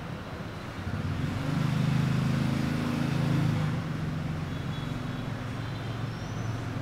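Motor vehicle engine in passing street traffic, swelling about a second in and loudest for the next two seconds or so, then easing back to steady traffic noise.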